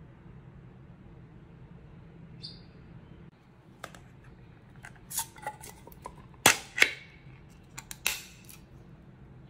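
Pull-tab lid of a small metal can of wet cat food being opened: a series of sharp metallic clicks and cracks as the tab is lifted, the seal pops and the lid tears away around the rim, loudest as two snaps in quick succession a little past the middle.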